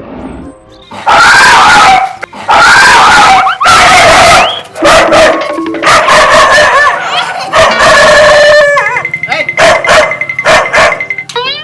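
A dog barking over music.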